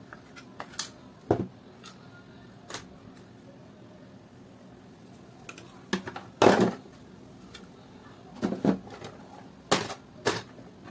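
Plastic housing and internal parts of a hand mixer clicking and knocking as they are handled and set down on a table, in irregular taps with a louder clatter about six and a half seconds in.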